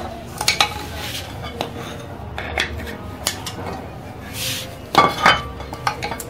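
Metal parts of a donkey pump's crank set clinking and knocking together as they are fitted by hand into the pump housing: a handful of sharp metallic clinks, the loudest pair about five seconds in, with a short scraping rub just before them.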